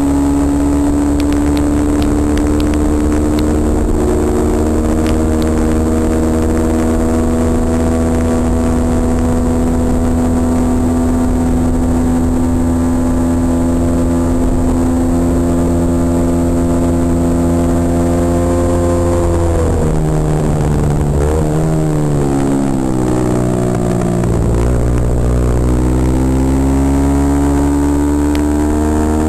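Kawasaki KSR110's air-cooled single-cylinder four-stroke engine held at high revs, its pitch creeping slowly upward as it accelerates along a straight. About two-thirds of the way in the revs drop sharply and waver as it slows for a bend, then climb steadily again as it pulls out.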